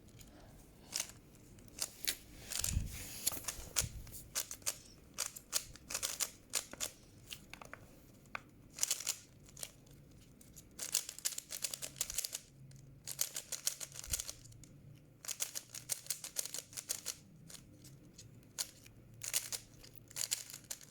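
A plastic Rubik's-style puzzle cube being turned quickly by hand, with irregular runs of rapid clicking and clacking layer turns. There are two dull knocks about three and four seconds in.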